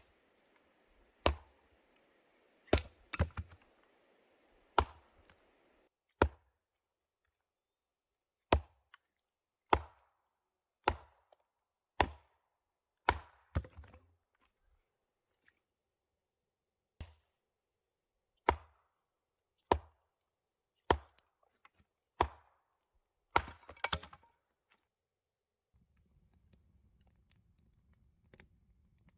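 A series of sharp chopping strikes, mostly about one a second, with a pause about halfway and a quick cluster of hits near the end.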